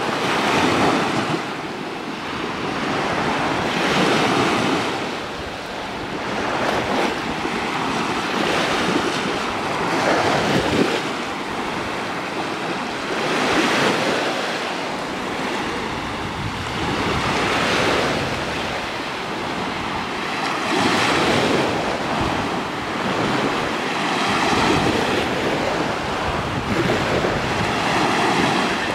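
Small sea waves breaking and washing up on a sandy shore, the surf swelling every three to four seconds, with wind rumbling on the microphone.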